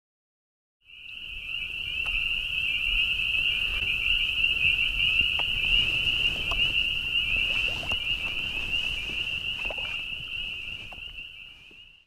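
A continuous high-pitched trill from a calling animal, held on one pitch. It starts about a second in and fades away near the end.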